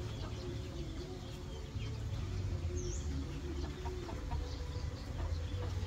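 Chickens clucking in short broken calls, with a few brief high chirps, over a steady low rumble.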